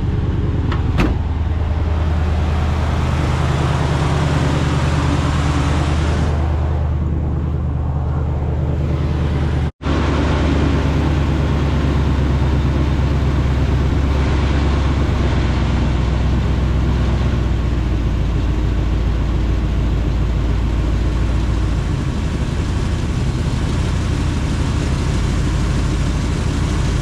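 A motor vehicle's engine running steadily, with a deep hum. The sound cuts out for an instant about ten seconds in, and the deepest part of the hum drops away about 22 seconds in.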